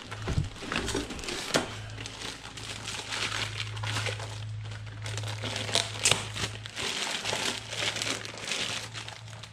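Plastic wrapping crinkling and rustling irregularly, with scattered sharp crackles, as it is handled and pulled off a car amplifier being unpacked from its box.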